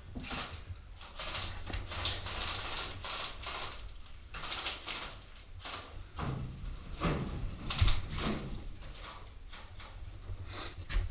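Irregular knocks, clicks and rustling from an airsoft player moving with his kit, over a constant low rumble from the body-worn camera's microphone.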